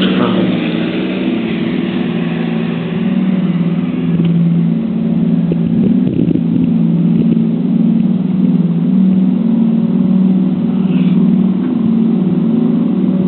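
A loud, steady low mechanical hum whose pitch wavers slowly between two close notes.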